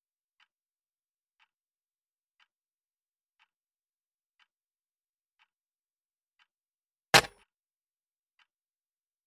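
A clock ticking faintly, about once a second. About seven seconds in comes a single sharp bang, much louder than the ticking and over almost at once.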